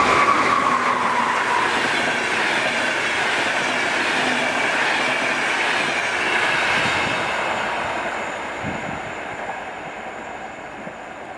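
Pesa Gama 111Ed electric locomotive and its passenger coaches passing close at speed, with a whine that falls in pitch as the locomotive goes by. The coaches roll past in a steady rush, which fades away over the last few seconds.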